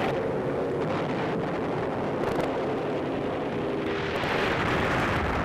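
Steady droning rumble of piston bomber engines, a loud even noise with a low hum running through it.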